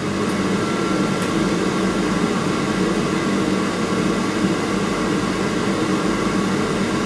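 Heatline wall-mounted gas boiler's flue extractor fan spinning up at start-up and then running with a steady whir, doing the pre-purge of the combustion chamber.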